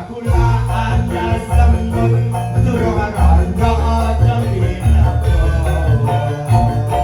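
Live band music with a heavy bass line and rhythmic percussion.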